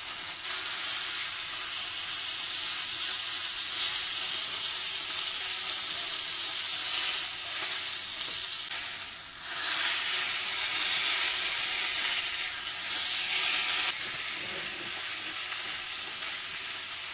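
Beef steak searing in hot oil in a cast-iron skillet, a steady sizzle with its second side just turned down onto the pan. The sizzle grows louder a little past halfway and drops back suddenly about three seconds before the end.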